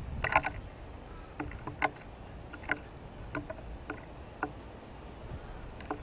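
Painted buntings pecking and cracking seed on a wooden platform feeder: short, sharp clicks and taps at irregular intervals, about eight in all.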